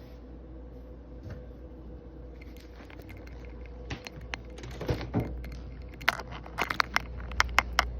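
Light clicks and clatter of kitchen items being handled and put away, starting about four seconds in and coming thicker and louder near the end, over a steady low hum.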